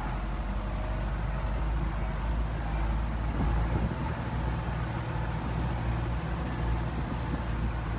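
Belarus MTZ 820 tractor's four-cylinder diesel engine running steadily under load, pulling a disc plough.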